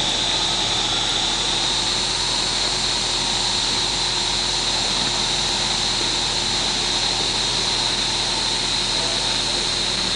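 Diesel locomotive engine running steadily, with a high, steady whistle held over the engine noise, typical of a diesel locomotive's turbocharger.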